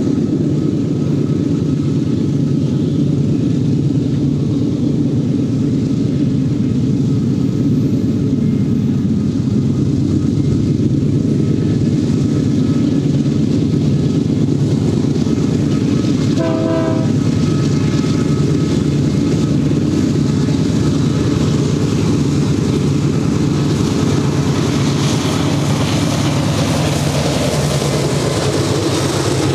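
BNSF GE C44-9W diesel-electric locomotives running under power as they approach and pass, a loud, steady engine drone. A short horn blast sounds about halfway in, and in the last few seconds the rattle of steel wheels on the rail rises as the autorack cars roll by.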